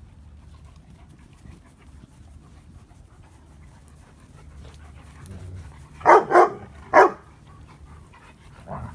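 Adult German Shepherd barking during play: three short, loud barks in quick succession about six seconds in, then a fainter bark near the end.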